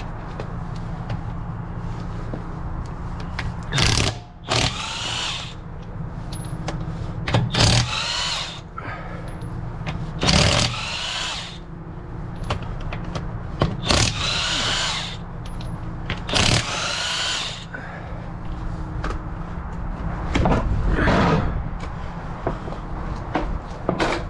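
Power impact wrench undoing the lug nuts on a flat car wheel: about eight short bursts a few seconds apart, each rising in pitch as the nut spins free, over a steady low hum.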